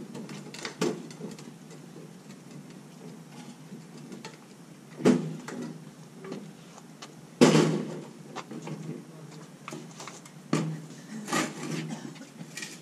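Scattered knocks and clicks of a ratchet strap and its metal hardware being handled against a steel gun safe while it is strapped up, with the loudest knock a little past halfway and a quick run of clicks near the end.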